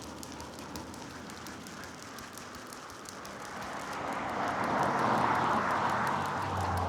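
A passing vehicle's noise swells up over a few seconds and is loudest about two-thirds of the way in, with a low hum coming in near the end.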